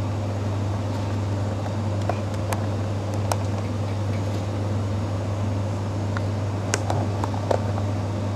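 Steady low electrical hum, with a few faint sharp clicks.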